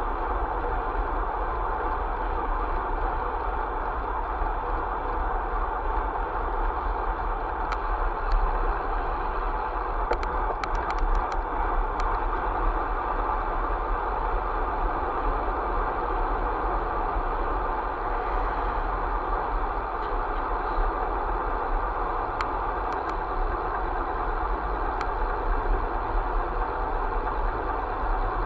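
Steady running noise of a vehicle driving along at speed, engine and road noise blended, with a few scattered light clicks.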